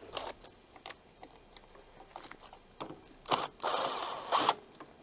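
Cordless driver with a socket bit spinning out the bolts that hold the air filter base and carburetor on a Briggs & Stratton 500E engine: a short run a little past three seconds in, then a longer run of nearly a second. Light clicks and taps of the tool on the bolts come in between.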